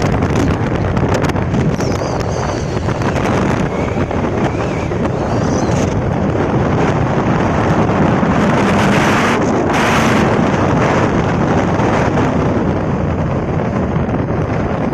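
Strong wind rushing and buffeting the microphone, a steady heavy noise with a gust that swells about eight to ten seconds in. Faint wavering high whistles come and go in the first half.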